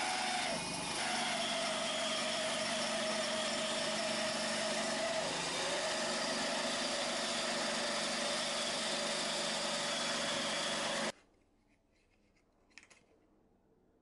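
Benchtop band saw running and slicing through a blank of blue epoxy resin and wood, a steady whine whose pitch sags a little as the blank is pushed into the blade. It cuts off suddenly about eleven seconds in, leaving near quiet with a single faint click.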